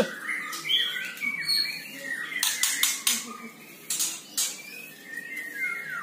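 White-rumped shama chirping in short whistled notes and pitch glides, with several sharp clicks in between.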